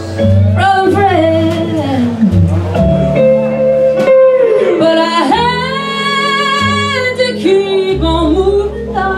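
Live band playing a slow song, a woman singing over her keyboard and the band, with a long held, wavering note in the middle.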